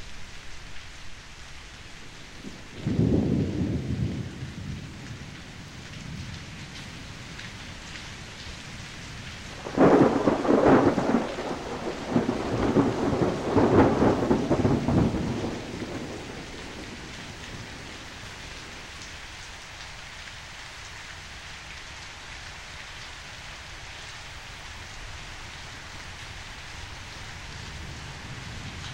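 Steady rain with two rolls of thunder: a low rumble about three seconds in that fades over a couple of seconds, then a louder, longer peal from about ten to sixteen seconds in.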